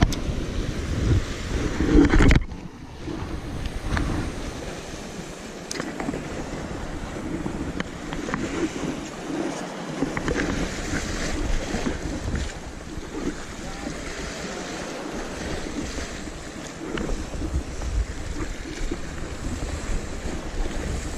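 Sea surf washing against the rocks, with wind buffeting the microphone. The loud gusty rumble stops suddenly about two seconds in, leaving a steady wash of waves.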